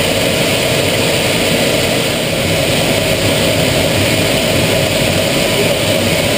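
Steady, loud rush inside the cockpit of an Aero L-39 Albatros jet trainer in flight: its Ivchenko AI-25TL turbofan and the airflow over the canopy, unbroken.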